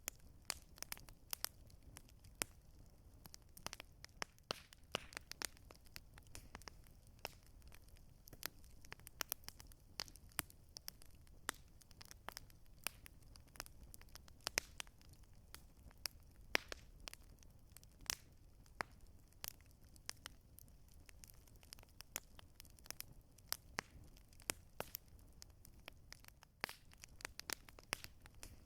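Campfire burning, crackling with many small irregular pops and snaps over a soft, steady low rush.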